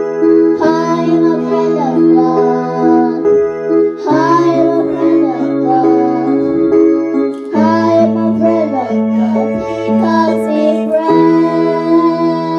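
Young children singing into microphones over sustained electronic keyboard chords, which change about every three to four seconds.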